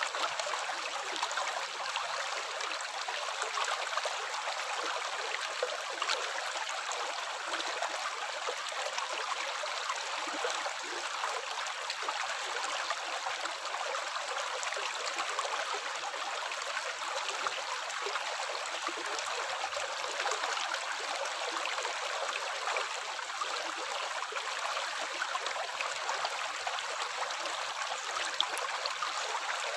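Water running steadily, an even trickling splash with no pauses or changes.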